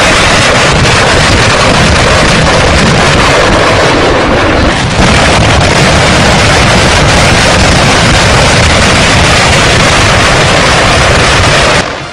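Rocket artillery firing a salvo: a continuous, very loud roar of rocket exhaust, with a brief dip about four and a half seconds in and a drop just before the end.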